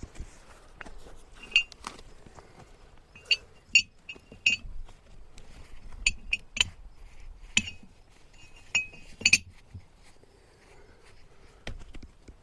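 Steel splitting wedges being set in an oak log with light metal-on-metal taps, about ten uneven strikes, each giving a short metallic ring.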